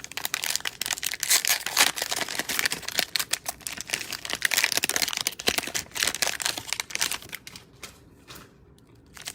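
Cellophane wrapper of a Donruss Optic cello card pack crinkling and tearing as it is opened by hand: a dense run of crackles for about seven seconds, thinning to a few scattered ticks near the end.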